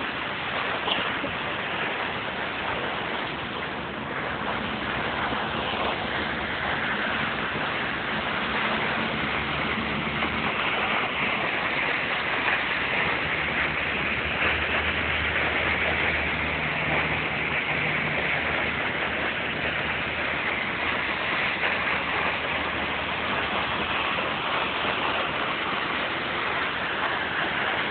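Steady, unbroken rushing of a high waterfall in flood, flowing fast after a big rainstorm.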